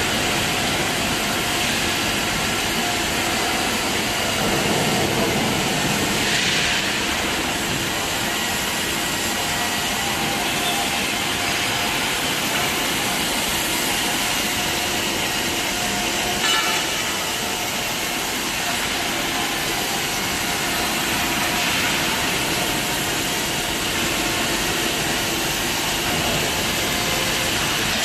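Automatic welding robot at work: a steady arc-welding hiss over machine noise, with brief surges about a third of the way in and again past halfway.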